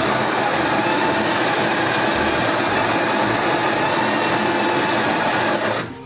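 Built-in burr grinder of a Lelit Anita PL042 espresso machine running steadily, grinding coffee beans into the portafilter basket; it cuts off near the end.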